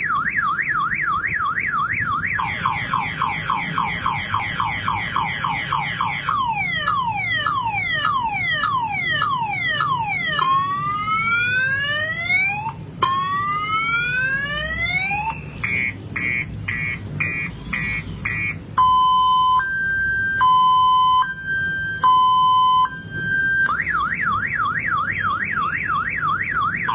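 Electronic car alarm siren cycling through its tone patterns. It starts with a fast up-and-down warble, then gives quick falling chirps, slower falling sweeps, rising whoops, rapid beeping and a two-tone high-low. The fast warble returns near the end.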